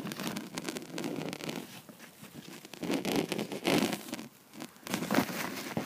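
Handling noise: rustling and scraping right at the microphone in several irregular bursts.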